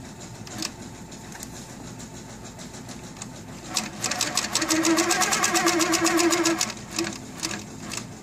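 Baby Lock Coronet longarm quilting machine stitching in rapid, even needle strokes with its motor humming. It makes a short burst of stitches about half a second in, runs more quietly, then stitches steadily from about four seconds to about seven seconds, and ends with a couple of short bursts.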